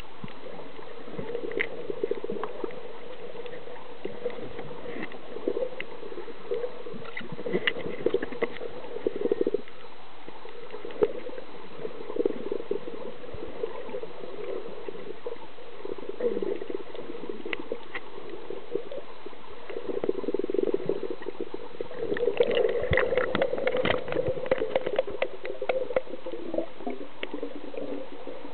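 Muffled underwater sound picked up through a camera's waterproof housing: water sloshing and gurgling, with scattered faint clicks and crackles that grow busier toward the end.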